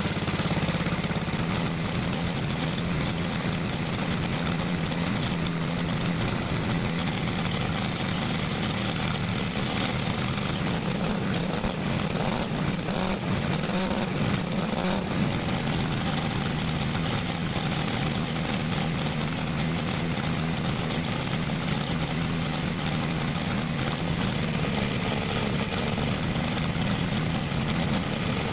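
Go-kart engine running under load on a small-engine dyno, holding a fairly steady speed with slight wavering as the dyno's load valve is worked by hand.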